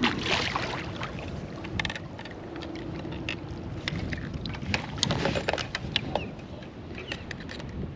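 Water splashing as a hooked redfish thrashes at the surface beside a kayak, in two louder bursts about five seconds apart, with small clicks and knocks in between.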